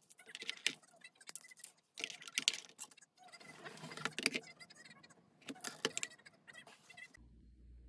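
Clicks and clatter of a digital kitchen scale being handled on a wooden table: batteries pressed into its battery compartment, the scale turned over and set down, and a remote placed on it, in several short bursts of taps and knocks.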